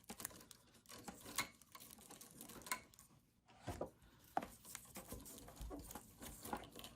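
Printer wiring being handled and pushed around the frame: soft rustling with scattered light clicks and taps.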